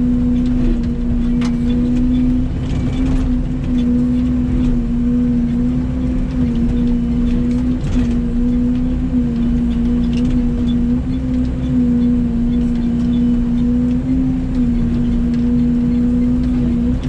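Mini excavator engine running steadily at working throttle, a constant drone whose pitch sags briefly a few times as it takes load. Scattered light cracks and knocks of brush being handled by the bucket.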